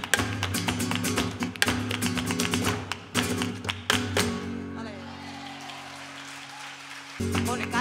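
Live flamenco music: acoustic guitar and cello chords under a dense run of sharp percussive strikes from the dancer's footwork. About four seconds in the strikes stop and a held chord rings and fades for about three seconds, until the music comes back in strongly near the end.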